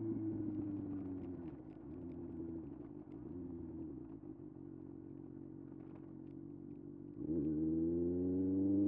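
Kawasaki ZX-6R inline-four engine. It is easing off with its pitch falling, then runs low and quieter for several seconds. About seven seconds in it opens up sharply and its pitch climbs as it accelerates.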